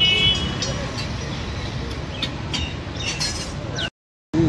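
Busy street background: a steady traffic rumble with a brief high squeal right at the start and scattered light clicks. The sound cuts out completely for under half a second near the end.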